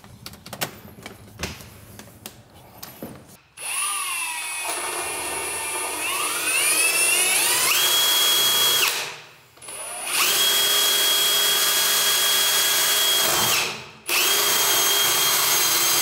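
Ryobi cordless drill turning a screw in a door panel, in three runs: the motor whine climbs in pitch over about four seconds before holding steady, stops, then runs at a steady speed twice more with a short break between. Light clicks and knocks come before the first run.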